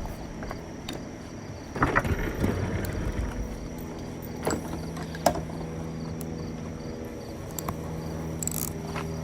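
Scattered clinks and knocks of hand tools working on a power wheelchair's wheel, a few sharp ones about two and five seconds in, over a steady low hum and insects chirping.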